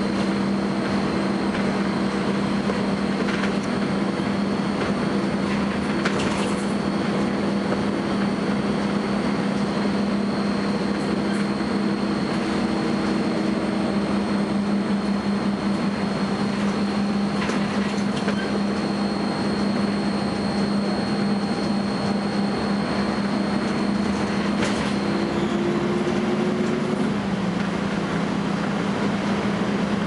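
Volvo B10BLE bus running on the move, heard from inside: steady engine and road noise with a thin, constant high-pitched whine over it, the bus's unexplained strange noise. The whine cuts out near the end, and the engine note changes at about the same time.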